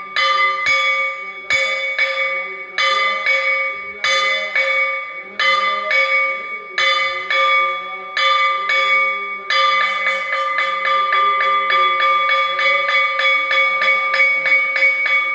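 A metal temple bell rung for the aarti, the same ringing tones each strike: uneven strikes about a second apart, often in pairs, then from a little past halfway fast, steady ringing of several strikes a second.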